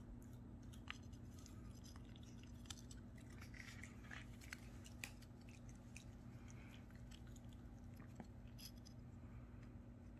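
Near silence over a faint steady hum, with scattered faint clicks and scrapes of the stone fossil pieces being handled and knocked together in the hand.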